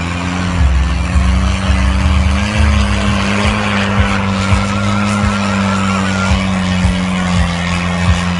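Tractor engine running hard under heavy load, its note climbing slightly and holding before easing back near the end. A wavering squeal about four seconds in, with irregular low thumps underneath.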